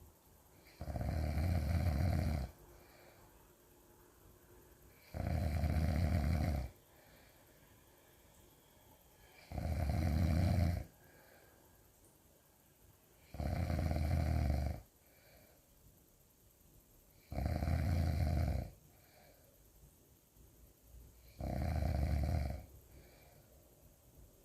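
Loud snoring: six long snores, one about every four seconds, each lasting about a second and a half, with quiet gaps between.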